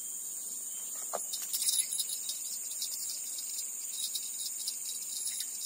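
Steady high-pitched insect drone, with a quick scatter of light metallic clicks and jingles, busiest about one and a half to two seconds in.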